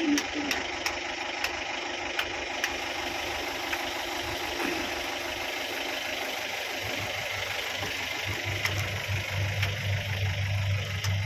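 Vehicle engine idling, heard from inside the coach cabin. A steady hum carries faint regular ticks in the first couple of seconds, and a low, pulsing drone grows louder after about seven seconds.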